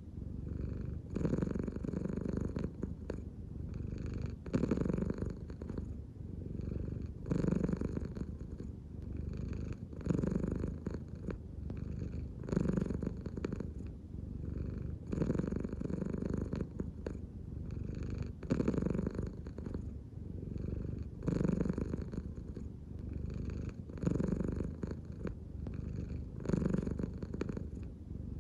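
American Shorthair cat purring steadily. The purr swells and eases in a regular cycle about every two and a half seconds, in step with its slow belly breathing, the sign of a relaxed cat.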